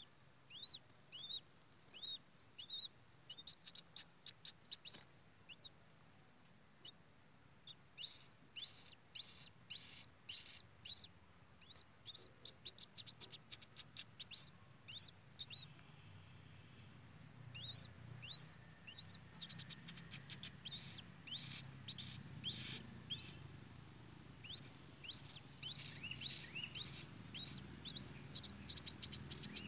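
A bird giving long runs of short, high chirps, several a second, with pauses between runs; the calling gets busier and louder in the second half.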